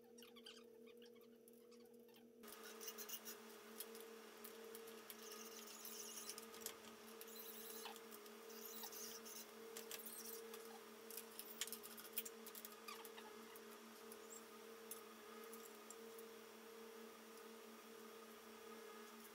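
Faint room tone with a steady hum. From a couple of seconds in, small scattered clicks and rustles come from hands handling wires and cable ties on an aluminium frame.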